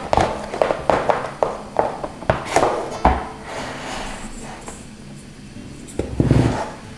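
Kitchen handling noises as a ball of pizza dough is lifted from a plastic tray and dropped into a stainless steel bowl of flour: a run of light knocks and taps over the first few seconds, then softer movement, and a duller thump about six seconds in.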